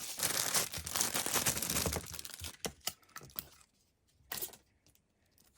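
Packaging crinkling and tearing as merchandise is unwrapped by hand, dense for about the first two and a half seconds, then a few scattered rustles and clicks.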